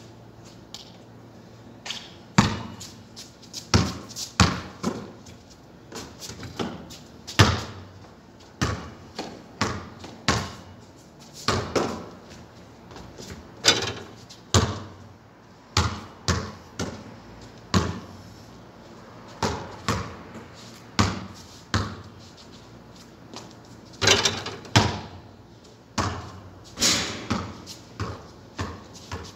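Basketball bouncing on a concrete court as a player dribbles and shoots: sharp, irregular bounces about every second, each with a short echo.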